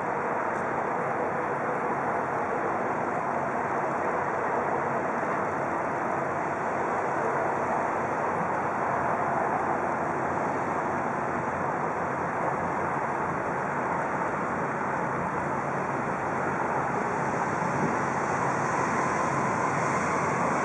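Steady harbour background noise, an even wash of wind and water with no distinct events.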